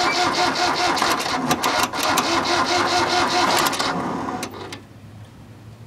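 Tractor engine being cranked over by its electric starter, a fast rhythmic churning that doesn't catch, then stopping about four and a half seconds in. It is a cold, no-start condition after the tractor has sat unused for about a month.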